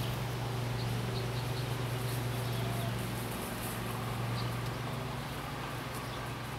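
A steady low hum runs throughout, with a few faint, short, high bird chirps over it.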